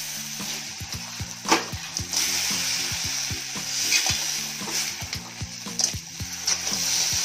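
Crab pieces frying in spiced masala in a steel wok, a steady sizzle, while a metal spatula scrapes and clacks against the pan as they are turned, with one sharp clack about one and a half seconds in.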